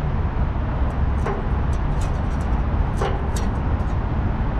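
Steady low rumble of road traffic, with a few light clicks and taps scattered through it, about one to three seconds in.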